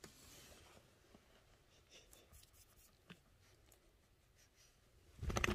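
Faint rustling and scratching of a plush fabric cat bed as a hand holds its flap open, with a few small ticks, then a short louder bump of handling noise near the end.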